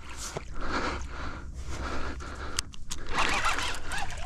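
Irregular scraping and rustling from a baitcasting reel being worked and clothing rubbing, while a hooked musky is fought on a bent rod.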